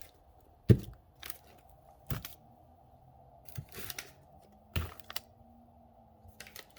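Handling noises as cardboard firework fountains are picked up and set down: a series of irregular knocks and short rustles, about eight in all.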